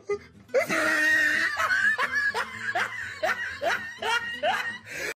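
A person laughing: a long run of short laughing syllables, about three a second, starting about half a second in.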